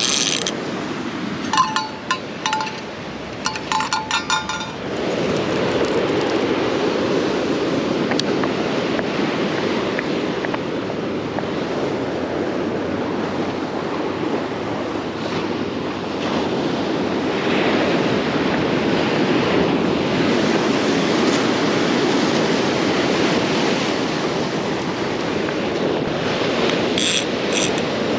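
Ocean surf washing steadily against the shore, with wind on the microphone. In the first five seconds there are two short runs of rapid ratcheting clicks from a fishing reel, and a few more clicks near the end.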